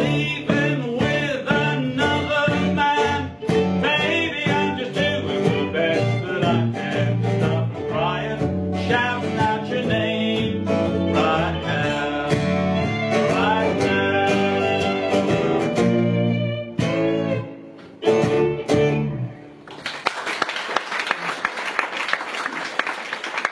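Country-style acoustic band of fiddle, acoustic guitar and electric bass playing a song with a man singing. The song ends with a final chord a few seconds before the end, and applause follows.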